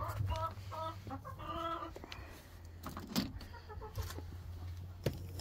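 Hens clucking, a few short clucks in the first two seconds, followed by a sharp knock about three seconds in and another near the end, over a steady low hum.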